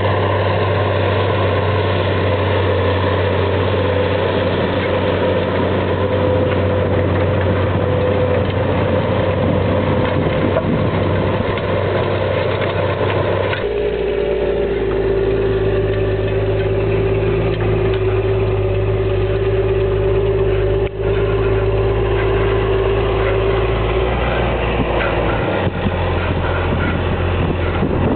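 Versatile 2375 four-wheel-drive tractor's diesel engine running steadily under load while pulling a Väderstad TopDown cultivator through stubble. The sound changes abruptly about halfway through as the tractor comes close, with a steady whine over the engine for several seconds.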